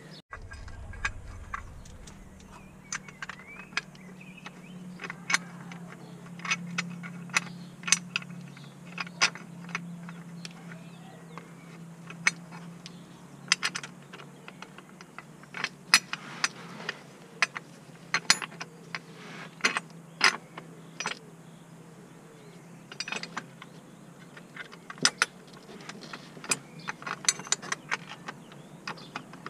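Irregular metallic clinks and clicks of hand tools and bolts against the gearbox casing as a mechanic works under a car, over a faint low steady hum.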